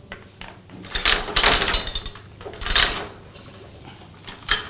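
Antique Boston hand-lever platen press being worked by hand, its metal mechanism clattering in bursts: a run of clanks about a second in, another just before the three-second mark, and a short one at the end.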